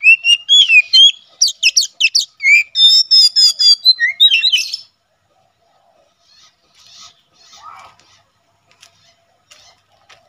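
Oriental magpie-robin (kacer) singing a loud, varied song of whistled phrases and rapid trills, which stops about halfway through; only faint short chirps and clicks follow.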